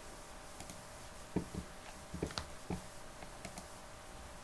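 Scattered small clicks and taps of hands handling wires and a soldering iron against the metal back frame of an LED TV, over a faint steady hum.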